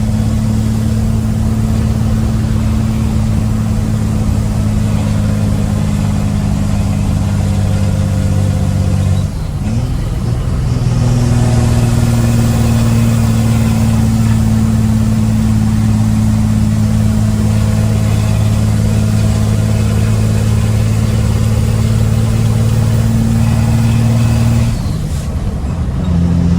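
Ford Cargo truck's diesel engine pulling hard up a short climb, heard from the cab through a partly open window: a steady low drone that breaks briefly about nine seconds in, then runs on louder and slightly higher, easing off briefly near the end.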